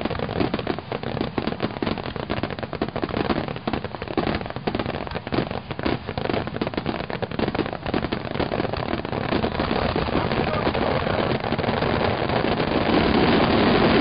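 Crackling fireworks going off in a dense stream of rapid small pops and snaps. Over the last few seconds the crackle thickens into a louder, even hiss-like mass.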